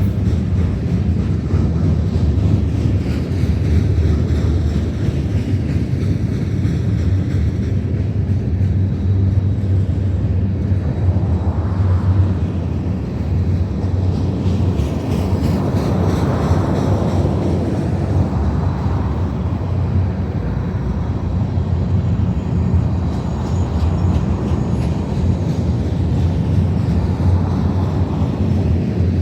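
Freight train cars rolling past: a loud, steady low rumble of wheels on rail with no horn.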